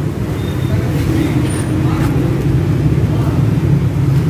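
A motor vehicle engine running, a steady low rumble, with faint voices.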